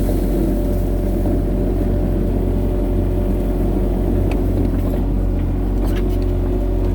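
Excavator's diesel engine running steadily, with a few faint knocks about four and six seconds in.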